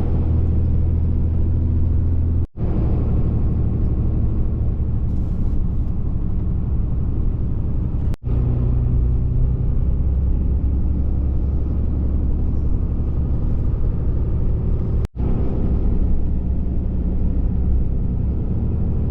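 A motor vehicle's engine and road rumble heard from inside the cab, driving at a steady pace, with three brief dropouts.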